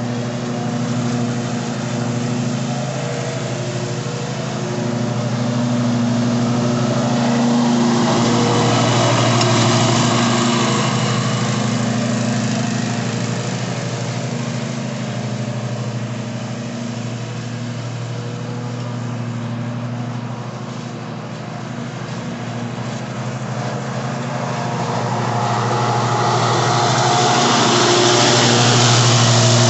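Kawasaki FR691V V-twin engine of an Ariens Ikon XD 52-inch zero-turn mower running steadily while mowing. It grows louder around ten seconds in and again near the end as the mower comes close.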